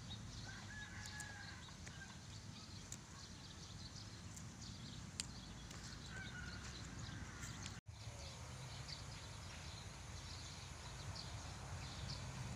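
Faint rural outdoor ambience with a few short bird chirps and scattered light clicks and rustles from chilli plants being picked by hand. The sound drops out for an instant about eight seconds in.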